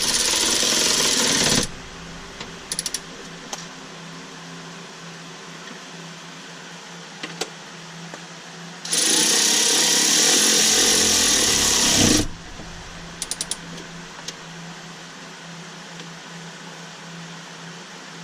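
Cordless power tool running the bolts on the Tesla Model 3's pyro fuse in two bursts: about a second and a half at the start, then about three seconds from roughly 9 seconds in. A steady low hum and a few light clicks come between the bursts.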